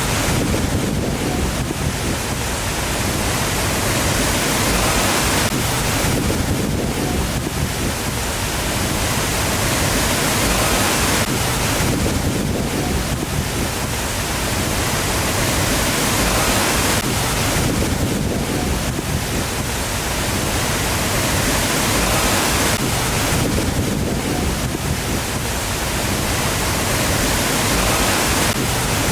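Waterfall: a steady, loud rush of falling water that swells and eases about every six seconds.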